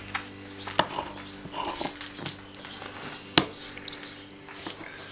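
Metal fork and knife pulling apart tender smoked lamb ribs on a wooden cutting board, with light scraping and two sharp clicks of cutlery on the board, about a second in and past the halfway point.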